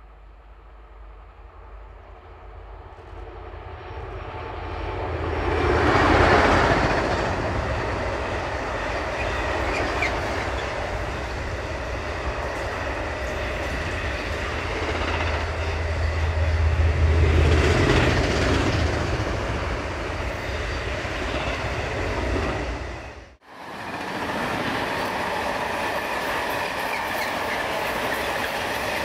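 Class 92 electric locomotive 92017 approaching and passing at speed with a long intermodal container train. The sound builds from about two seconds in to its loudest as the locomotive goes by, then the container wagons' wheels run steadily over the rails with a second swell midway. A little after two-thirds through, the sound drops out for an instant and returns.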